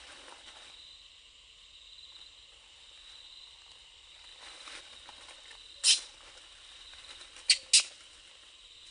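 Steady high-pitched insect drone in the forest, with faint rustling in dry leaf litter. Three short, sharp, loud sounds come through it: one about six seconds in and two close together near the end.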